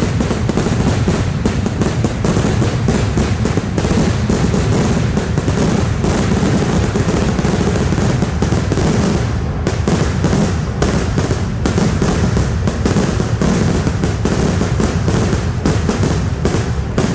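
Kerala temple fireworks (vedikettu) in a dense, continuous barrage of firecracker bangs, so rapid they merge into one unbroken rattle.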